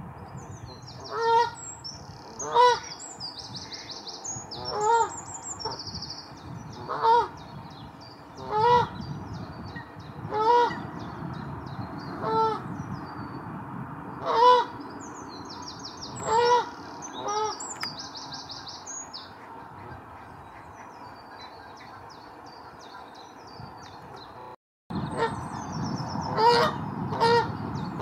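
Canada geese honking, single honks about every two seconds, then a lull, with honks coming closer together near the end. Small birds sing higher up in the background.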